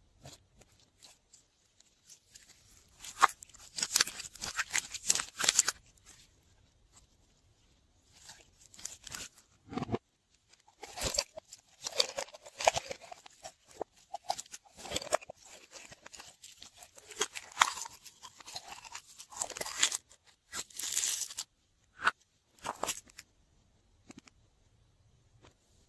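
Slime being squished and kneaded by hand, in bursts of crackling, popping clicks with short pauses between.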